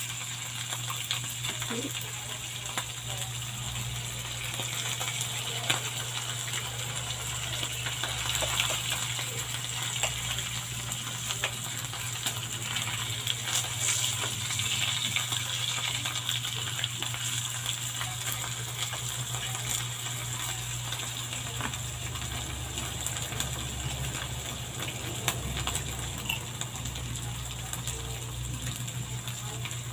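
Dried salted fish (tuyo) frying in oil in a wok, giving a steady sizzle with frequent small pops and crackles. A metal spatula scrapes the wok about halfway through as the fish are turned. A steady low hum runs underneath.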